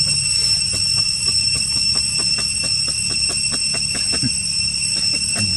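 A steady high-pitched insect drone with a low rumble underneath and scattered faint clicks, about three or four a second.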